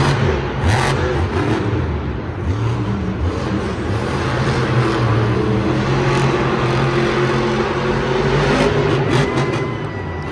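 Monster truck engine running and revving, its pitch rising and falling as the throttle is worked, with a few short sharp knocks about a second in and near the end and a faint thin whine near the end.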